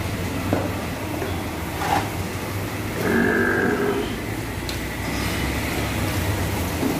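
A cow mooing once, for about a second, about three seconds in, over a steady low hum.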